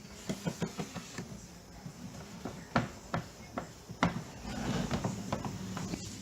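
Hands working a vinyl decal onto a plastic RC boat hull: a run of light taps and clicks, two of them sharper, then a brief rubbing sound about four and a half seconds in.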